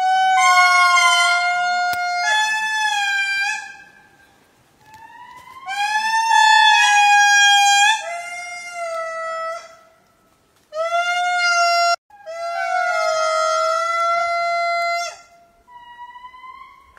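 A lemur giving a series of long, drawn-out, clear-pitched calls, about five in all, each held for one to three seconds and some sliding up in pitch at the start, with short gaps between.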